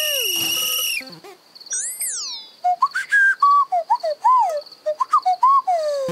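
Cartoon sound effects: a held whistle tone that cuts off about a second in, a slide-whistle glide that rises and falls, then a quick string of short whistled chirps at varying pitches ending in a falling glide. A faint steady high ring runs underneath.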